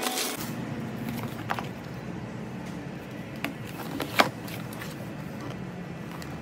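Packaging being handled: plastic wrap crinkles briefly at the start, then a few light taps and knocks of cardboard boxes being opened and lifted, the loudest about four seconds in, over a steady low hum.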